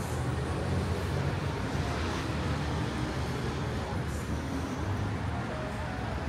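Steady city street ambience: road traffic running past with a low, even hum, and faint voices of passers-by.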